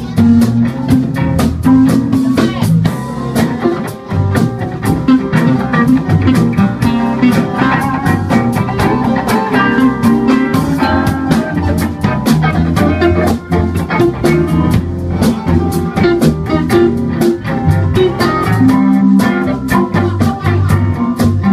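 Music with a steady beat, played loud and without a break.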